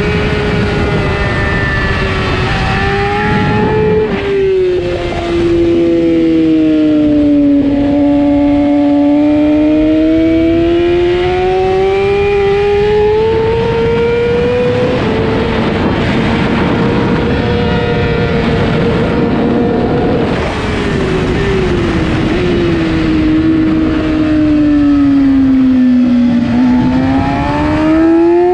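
600-class superbike engine at race pace, heard onboard over steady wind rush. The engine note drops in steps with downshifts about four seconds in, climbs steadily for about six seconds and holds high, drops again in steps from about twenty seconds in, then climbs once more near the end.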